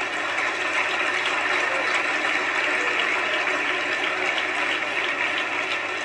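A large crowd applauding, many hands clapping together at a steady level.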